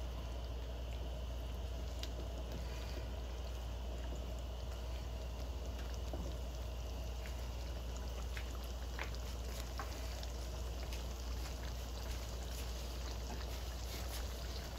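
Chicken roast simmering in a pan of oil and milk gravy: a steady bubbling sizzle with scattered small pops.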